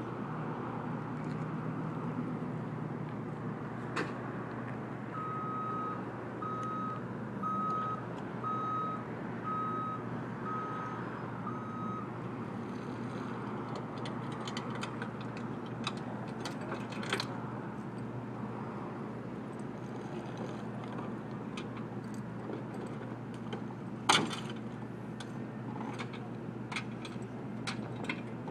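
Vehicle backup alarm beeping about seven times, a little over one beep a second, over a steady engine rumble and street noise. A single sharp clank stands out near the end.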